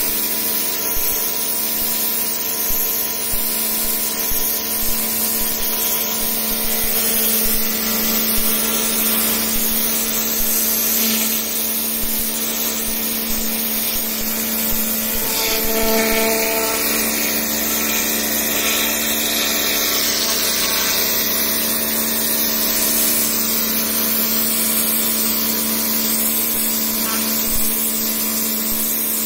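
Domestic pressure washer running steadily: the pump motor hums at an even pitch under the hiss of the high-pressure water jet striking stone paving slabs.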